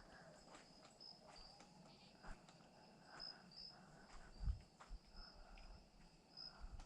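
Crickets chirping steadily at night in a high, thin band of short repeated notes, with faint scattered ticks and rustles and one soft low thump about four and a half seconds in.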